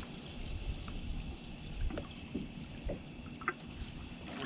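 Quiet night background: a steady high-pitched insect drone over a low rumble, with a few faint clicks.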